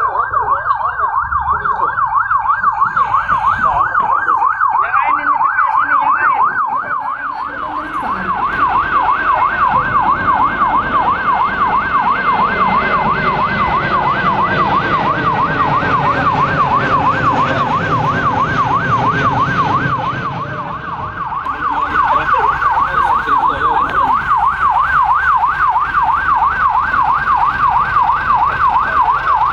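Ambulance siren in a fast yelp, its pitch sweeping up and down about three times a second. It dips briefly twice, then comes back up.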